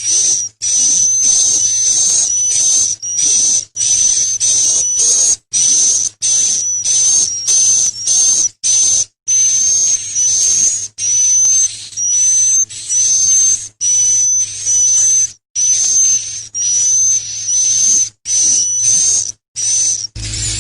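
Songbird singing a high, thin whistle, repeated in short phrases about once a second with brief breaks, over a hissy background.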